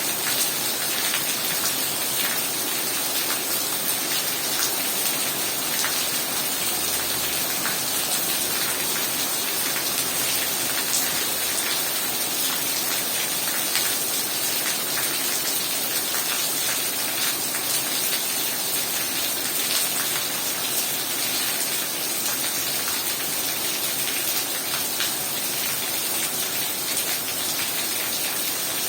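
Heavy rain falling steadily: a dense, unbroken hiss with many separate drops ticking close by.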